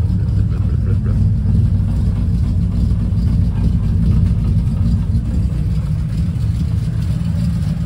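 Triumph Stag's 3.0-litre V8 engine running steadily on choke, warming up after its first cold start in a while.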